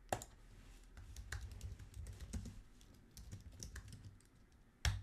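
Typing on a computer keyboard: a run of light key clicks, with one louder keystroke near the end.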